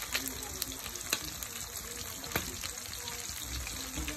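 Fish pieces deep-frying in hot oil in a kadai, sizzling steadily, with a few sharp clicks, the loudest about a second in and about two and a half seconds in.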